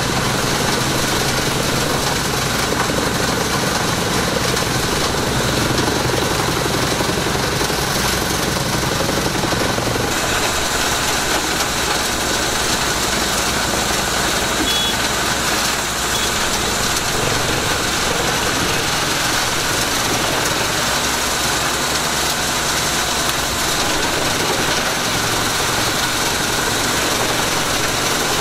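Pezzolato PTH500 wood chipper, driven by a Fiat 140-90 tractor's diesel engine, running steadily while it chips eucalyptus prunings fed in by a crane grapple. The sound turns brighter about ten seconds in.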